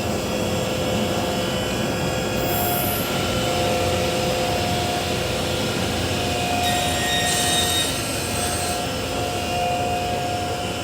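Altendorf F-45 sliding table saw running with its scoring blade and main blade spinning: a steady, loud machine noise with a couple of held whining tones. It stops abruptly at the end.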